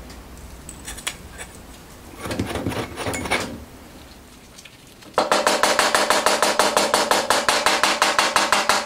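Soft scraping as a metal spoon scoops granular carburizing compound into a small ceramic crucible. About five seconds in, loud, rapid, even tapping starts on the ceramic crucible with a screwdriver handle, about eight taps a second, each with a short ring.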